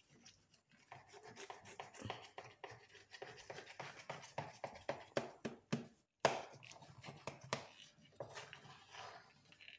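Handling noise from hands: a run of light, irregular taps, rubs and clicks, with one sharp knock about six seconds in.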